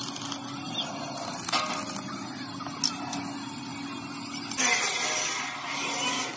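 Stick-welding arc crackling and hissing loudly for about a second and a half, starting about two-thirds of the way in, over a steady low hum.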